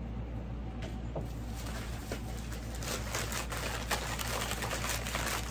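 Plastic bag or wrapping crinkling and rustling as an item is unwrapped, starting about a second and a half in, over the steady hum of an air conditioner and fans.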